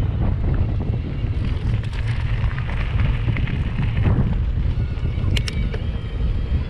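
Wind buffeting the microphone over the rumble of mountain bike tyres rolling off wooden footbridge planks and onto a gravel track. There are scattered clicks and a few sharp ticks about five seconds in.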